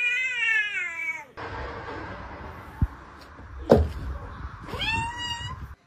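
Two cat meows: a long one with wavering pitch in the first second or so, and a shorter one rising in pitch near the end, with a sharp thump in between.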